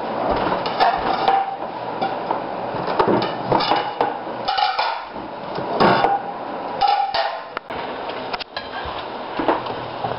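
Ceramic dinner plates clinking and knocking against each other and the cabinet shelf as they are taken down from a kitchen cupboard: a string of sharp clatters, a few with a brief ring.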